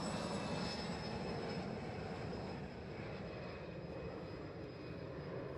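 Steady aircraft engine noise with a faint high whine, slowly fading out.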